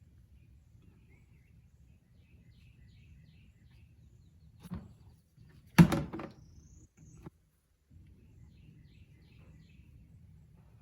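Faint background with small birds chirping. A little over halfway through come a couple of light knocks and then one loud, sharp metal clank that rings briefly, from tools working on the tractor's engine oil drain plug.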